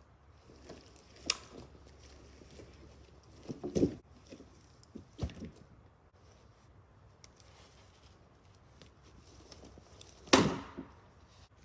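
Footsteps and handling of brush and branches: scattered crunches and knocks of wood. The loudest is a sharp knock about ten seconds in, followed by a brief rustle.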